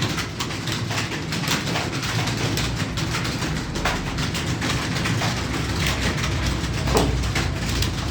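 Computer keyboard typing: a quick, irregular run of key clicks over a steady low hum.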